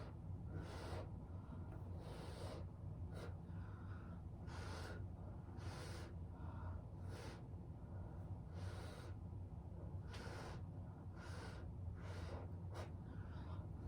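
Short, repeated puffs of breath blown onto wet acrylic paint to push it across the canvas, about one a second.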